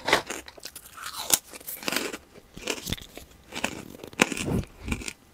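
A person biting and chewing freeze-dried cotton candy Peeps marshmallows: a run of irregular, brittle crunches.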